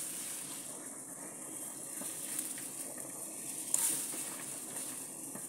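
Pot of sayur asem broth at a rolling boil on a gas stove, bubbling steadily, with one short sharp click about four seconds in.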